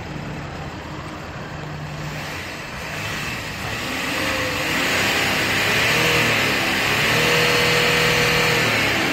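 Hyundai Veracruz diesel engine heard at the tailpipe, revved up from idle, held at higher revs for a few seconds, then let back down near the end: a rev test for black exhaust smoke.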